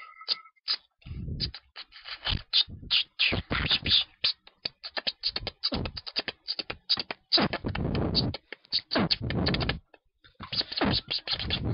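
Vocal sound-poetry mouth noises into a microphone: rapid, irregular clicks, hisses and breathy bursts in a beatbox-like stream, pausing briefly about ten seconds in.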